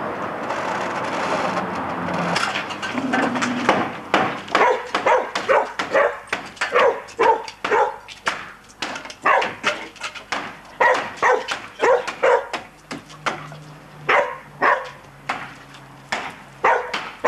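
For the first few seconds, beer poured from a bottle into a glass makes a steady rushing hiss. Then a claw hammer strikes the wooden frame of a lean-to roof in a long run of sharp blows, about two a second, knocking the timber apart.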